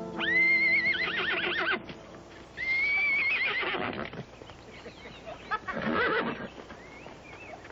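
A horse whinnying twice, loud and shrill, each call about a second and a half long, the second starting about two and a half seconds in. A shorter, rougher call follows about six seconds in as the horse rears and bucks with a rider on its back.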